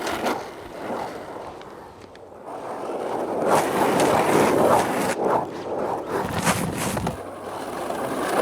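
Skateboard on urethane wheels rolling over pavement. The rolling grows louder after the first couple of seconds, with a few sharp clacks of the board.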